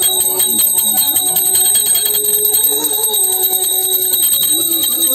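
A small brass pooja hand bell rung continuously, a steady high ringing with rapid clapper strikes, over music with a wavering melody.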